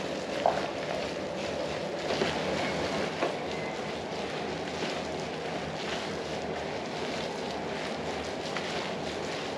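A gloved hand kneads and squishes minced pork filling in a plastic bowl, with a few soft short squelches and taps. A steady rushing background noise runs under it.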